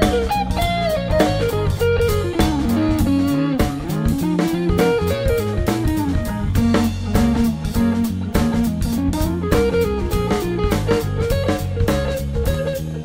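Funk band playing an instrumental section: an electric guitar lead line that sweeps down in pitch and climbs back up, over steady drum kit and bass.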